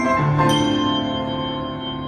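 Tuned bells being struck by hand, one strike about half a second in, after which the chord of bell tones rings on and slowly fades.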